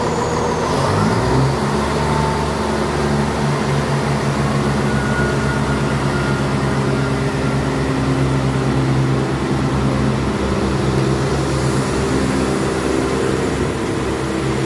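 CrossCountry Class 170 Turbostar diesel multiple unit moving off along the platform, its underfloor diesel engines working under power. The engine note rises about a second in, then runs steady and loud.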